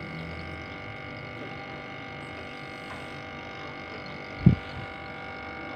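Refrigerator compressor running steadily with a hum just after start-up, drawing normal current, which the repairer takes as a sign the compressor is sound. A single dull low thump sounds about four and a half seconds in.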